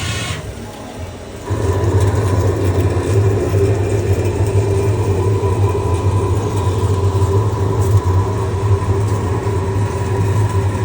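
CNC lathe running with a steady mechanical hum, which steps up sharply about a second and a half in and then holds.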